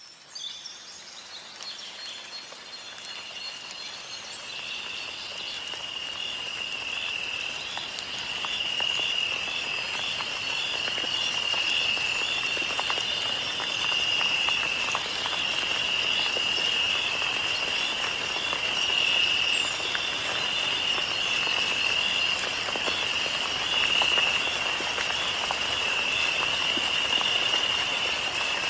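Fish frying in hot oil: a steady sizzle with scattered crackles that grows louder over the first several seconds, with a steady, slightly pulsing high tone running along with it.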